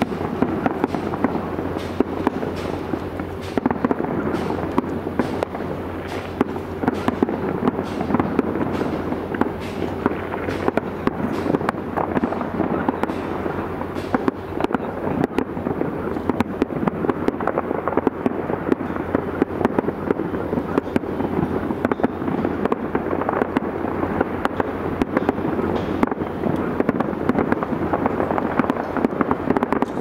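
Fireworks display: aerial shells bursting and crackling, many bangs in quick succession with no let-up.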